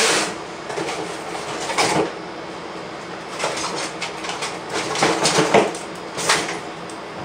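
Rummaging through a box of computer cables: about five short rustling clatters at irregular intervals, over a steady background hum.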